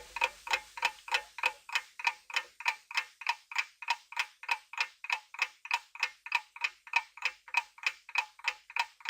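Clock-tick countdown timer sound effect: even, steady ticks, nearly four a second, marking the time left to answer a quiz question.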